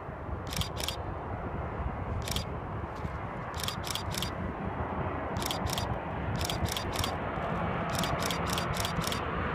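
Camera shutter firing in quick runs of two to four clicks, about seventeen in all, over the low rumble of a Boeing 787-8's jet engines on approach. The rumble grows louder toward the end.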